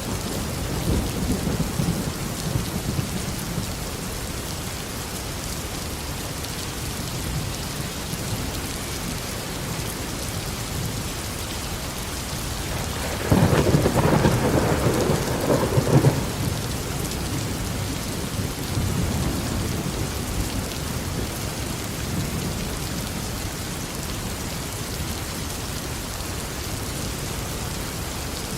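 Steady heavy rain falling, with low thunder rumbling. About halfway through, a sudden loud thunderclap breaks in, lasts two or three seconds, then rolls off into a low rumble under the rain.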